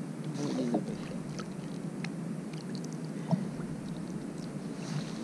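Water lapping around a kayak, with a few faint clicks and small splashes as a small hooked fish is handled at the surface.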